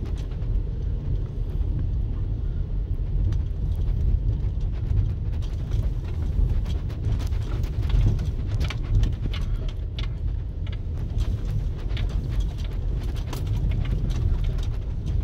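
Car rolling slowly over a bumpy dirt road, heard from inside the cabin: a steady low rumble of tyres and running gear with many small irregular knocks and rattles from the bumps.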